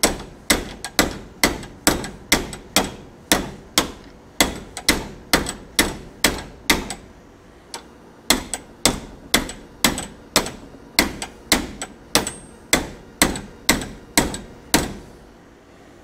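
A 16-ounce ball-peen hammer striking the head of a new steel hinge pin, driving it into a 1973 Barracuda upper door hinge: the last blows that seat the pin fully. The blows are steady at about two a second, with a short pause about halfway, and they stop about a second before the end.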